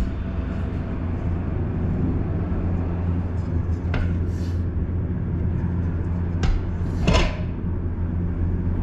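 Steady low hum with a few light knocks and a short scrape, about four, six and a half and seven seconds in, as an aluminium sheet is handled on a wooden bench.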